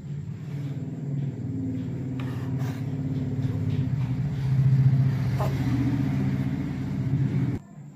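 An engine running with a low, pulsing hum that grows louder toward the middle and cuts off suddenly near the end.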